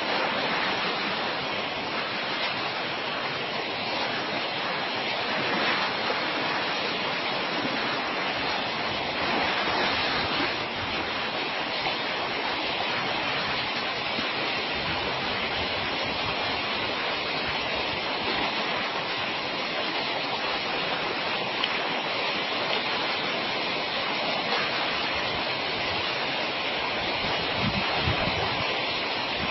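Steady rush of flowing water, with a few low thuds near the end.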